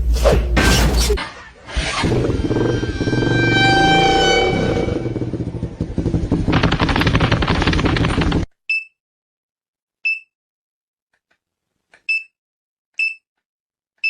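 Dense, noisy jumble of sound effects with several whistle-like tones sliding downward, turning into a crackling rattle that cuts off suddenly. Then, in silence, five short high electronic beeps at uneven intervals.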